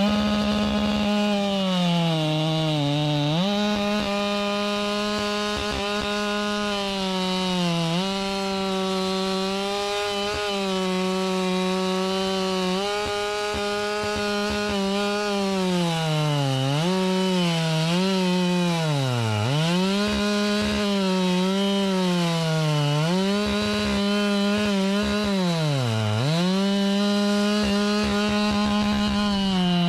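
Husqvarna 592 XP two-stroke chainsaw at full throttle cutting through a log. The engine pitch dips over and over as the bar is pushed into the wood, bogging down deepest twice in the second half and recovering each time.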